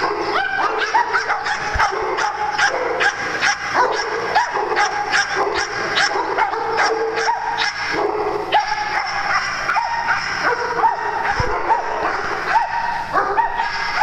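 Many dogs barking and yipping at once in a dense, overlapping chorus of short, sharp calls with no pause.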